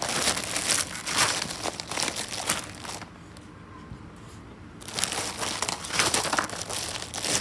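A bag crinkling and rustling as it is handled and things are taken out of it, in two spells with a quieter pause of about two seconds in the middle.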